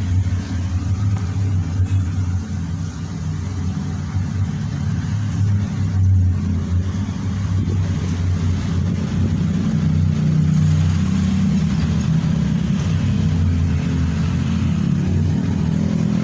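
Engine of a well-drilling machine running steadily at a low, even note, its sound shifting slightly higher and fuller about ten seconds in.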